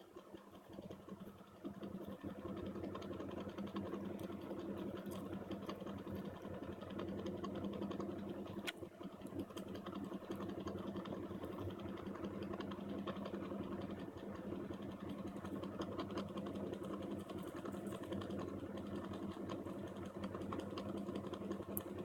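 Small electric fan running with a steady whirring hum, starting about a second and a half in, set going to blow away the smoke from steaming solder flux.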